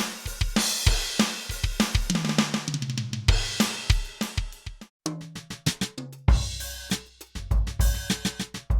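Millenium MPS-750 electronic drum kit played through its sound module: a groove of kick, snare, hi-hat and cymbals, with a fill down the toms about two seconds in. Near the middle the playing stops briefly, then resumes with a deep, booming kick.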